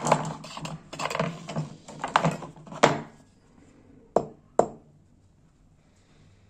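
Small hand tools, among them a hammer, being picked up and handled on a workbench: a run of irregular knocks and rattles for about three seconds, then two sharp clicks about a second later.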